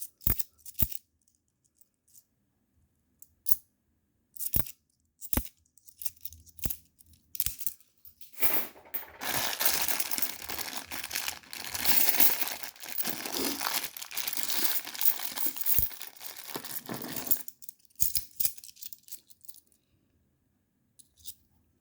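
A few scattered clicks of 10p coins being handled, then about nine seconds of plastic crinkling and tearing as a sealed coin bag is opened, before a few more clicks near the end.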